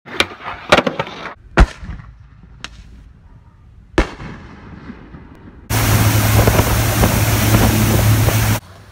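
Sharp skateboard clacks, then three firework bangs over a few seconds, the last trailing off in a crackle. About six seconds in, loud rushing wind and water noise starts over the low steady hum of a towing boat's engine, and it cuts off near the end.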